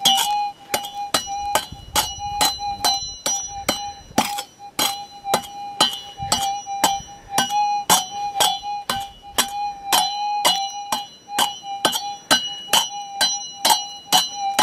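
A steel prospecting pick chipping into hard, rocky ground, about two or three metallic clinks a second, digging around a gold nugget lodged in a crevice of bedrock. Under the strikes runs a steady, even tone from the Minelab GPZ 7000 metal detector.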